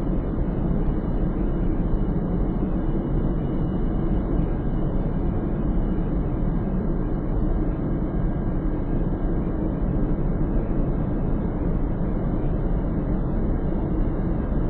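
Steady low rumbling noise with no distinct events or rhythm.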